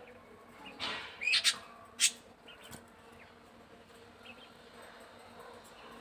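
Caged budgerigars giving a quick cluster of short, sharp, high-pitched calls about a second in, the loudest a single sharp squawk near the two-second mark, followed by a few faint chirps.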